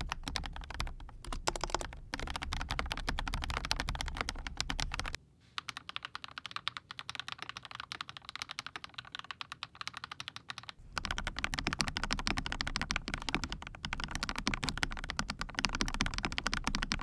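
Rapid, continuous typing on a mechanical keyboard with BSUN Aniya Pink linear switches, a dense run of keystroke clacks. From about five seconds in until about eleven seconds, the low hum underneath drops away and the typing is quieter and thinner, then the fuller sound comes back.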